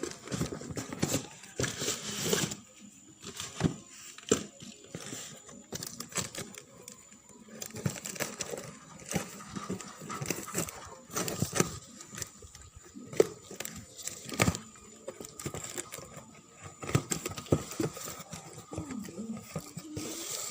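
Packaging being handled and unwrapped: rustling, crinkling plastic wrap with scattered clicks and knocks as the board is turned over by hand.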